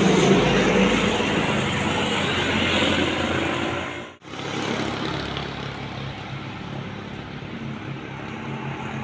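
Truck engines passing close on a road, with road noise. About four seconds in, the sound drops out for a split second, then another truck engine is heard approaching, getting louder near the end.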